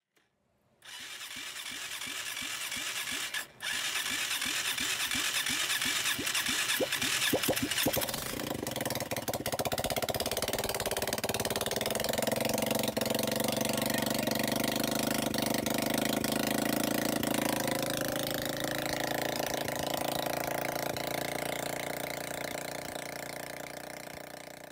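CNG auto rickshaw engine with a freshly fitted head gasket being cranked in quickening pulses, with a brief break about three and a half seconds in. It catches about eight seconds in, runs steadily, then fades near the end.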